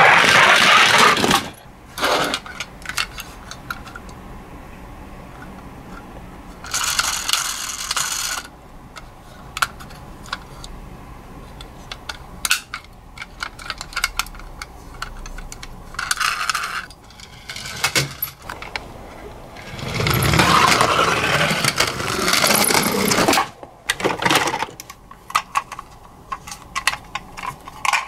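A toy ambulance rolling and scraping down a wooden ramp in the first second or so, followed by many clicks, clinks and rattles of toy ambulances being picked out of a cardboard box and handled, with a few longer stretches of rummaging.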